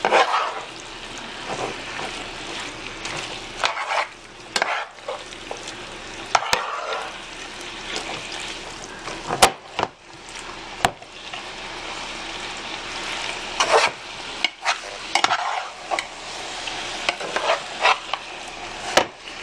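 Beef, onions and mushrooms frying in butter in a large sauté pan with a steady sizzle, stirred with a utensil that scrapes and now and then clicks sharply against the pan.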